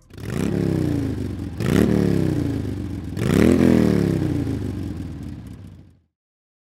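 Motorcycle engine revved three times, each blip rising quickly in pitch and falling away more slowly; the last one fades and cuts off near the end.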